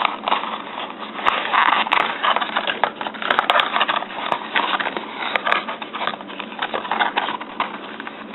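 Product packaging being handled and pushed back together by hand: a continuous irregular crinkling and crackling with many small clicks.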